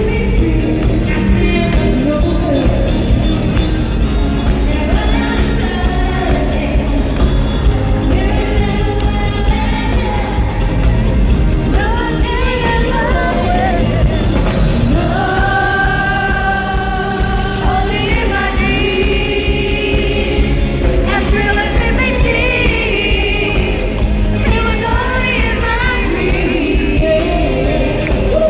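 Live 80s pop song: a woman singing the melody over a loud full band, with some notes held long, in an arena.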